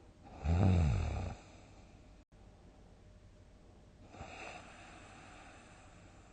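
A sleeping person snoring. One loud, low-pitched snore starts about half a second in and lasts about a second; a softer, breathy breath follows about four seconds in.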